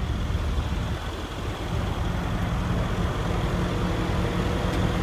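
2014 Mercedes-Benz CLS63 AMG's 5.5-litre twin-turbo V8 idling steadily.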